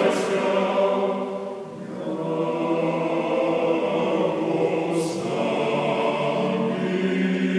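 Male choir of Serbian Orthodox priests singing liturgical chant a cappella in sustained chords. The singing dips briefly about two seconds in, then a new phrase begins and is held.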